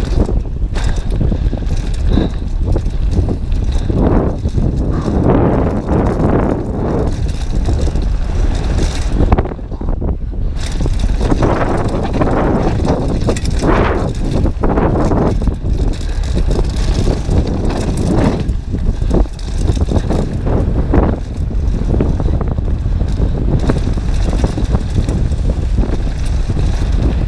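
Heavy wind noise on a GoPro's microphone while a downhill mountain bike runs fast over a loose gravel trail, with tyre crunch and the bike rattling over the bumps throughout.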